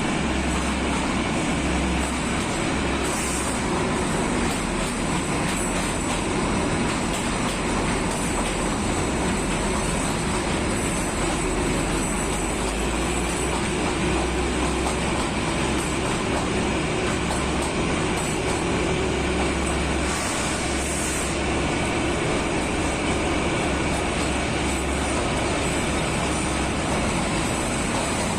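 Kalka–Shimla narrow-gauge (2 ft 6 in) toy train running through a long tunnel: a steady, unbroken rumble of the train on the rails.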